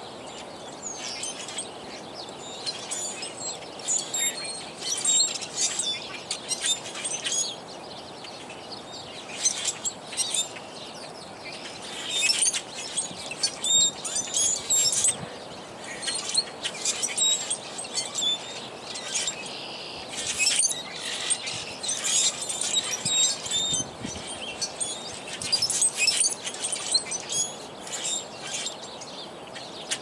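A flock of small dark songbirds in a bare treetop calling together: a dense chatter of high chirps and whistles that swells in bursts every second or two.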